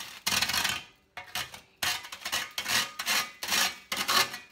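Dry toast grated against a metal box grater: a run of scratchy scraping strokes, about six in four and a half seconds, with short gaps between them.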